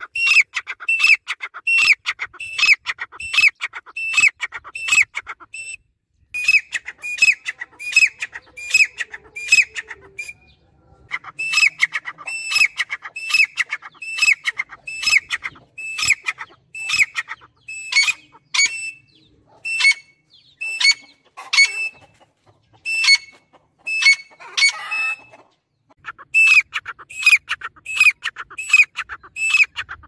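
Grey francolin calling: loud, ringing notes repeated about two a second in long runs, with a few short breaks between runs.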